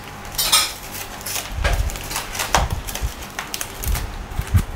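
Scattered kitchen handling noises: rustling, light knocks and a few dull thumps.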